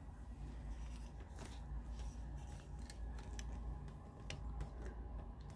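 Faint handling noise: scattered light clicks and rustles over a low steady hum as a handheld phone is carried and turned.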